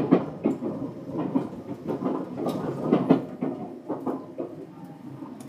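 Tobu 9000 series electric commuter train running, heard from inside the car: irregular clacks and knocks of the wheels over rail joints above a steady rumble.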